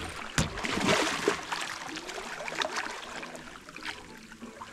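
Water splashing and churning as a hooked shark thrashes at the surface beside the boat's hull, with a few sharp splashes in the first second or so, then dying down to a softer wash.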